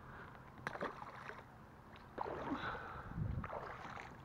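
Shallow lake water sloshing and splashing around an angler's wader-clad legs as he wades, in three surges a little over a second apart.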